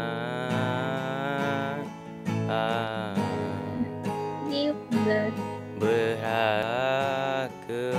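A male voice singing a slow ballad over a strummed acoustic guitar, holding long notes that waver in pitch.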